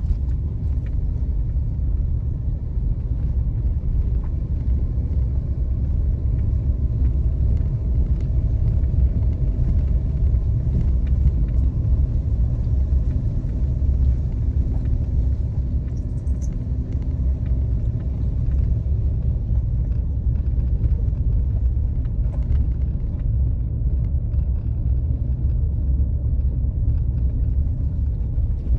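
Car driving slowly over a rough unpaved road: a steady low rumble of tyres and engine.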